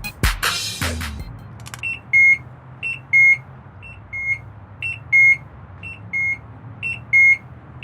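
Electronic theft alarm beeping in a repeating two-note pattern, a short higher beep then a longer lower one, about once a second: the alert that the bike lock has been tampered with. The beeping starts about two seconds in.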